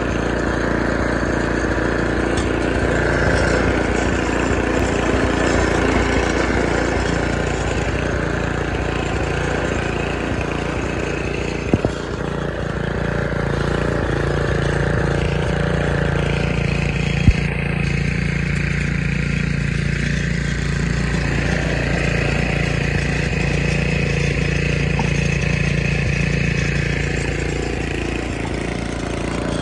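1973 Snapper snowblower's engine running steadily while it clears snow, with two brief sharp clicks, about twelve and seventeen seconds in.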